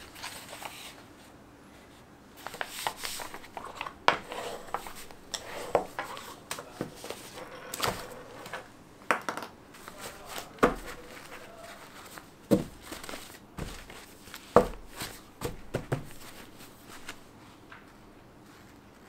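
Folded paper signatures for a journal being handled and fanned: dry paper rustling and crisp flicks, with a few dull knocks of the stack against the wooden table. It tapers off near the end.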